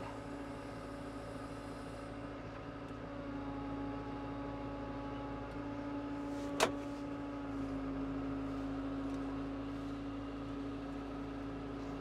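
Farm tractor engine running steadily, heard from inside the cab while the front loader lowers a round hay bale into a ring feeder. A single sharp knock sounds a little past halfway through.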